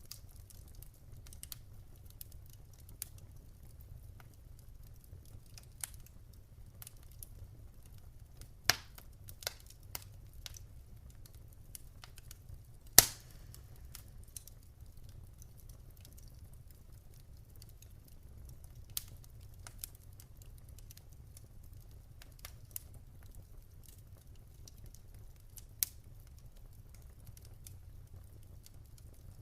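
Wood fire in a fireplace crackling, with a low steady rumble of flames and irregular sharp pops from the burning logs; the loudest pop comes about halfway through.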